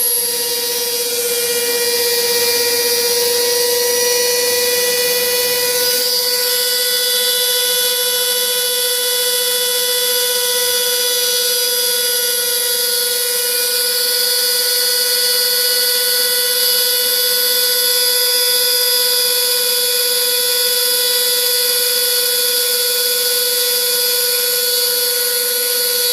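Router spindle of a homemade CNC carving machine running steadily as it carves wood: a loud, constant high whine whose pitch rises slightly in the first few seconds and then holds steady.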